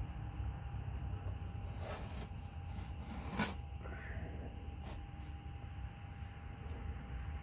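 Faint handling sounds of a vinyl decal being peeled and scraped off a car fender by gloved hands, with a few short sharp rasps, the loudest about three and a half seconds in, over a steady low rumble.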